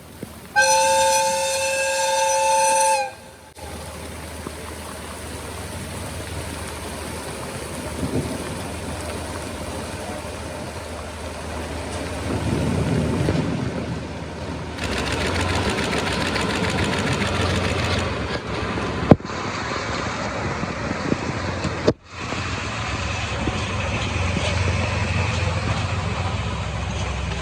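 A diesel locomotive horn sounds one steady blast of about two seconds, in two tones. After it comes the low, steady rumble of two DE10 diesel-hydraulic locomotives crawling slowly past, mixed with the hiss of heavy rain.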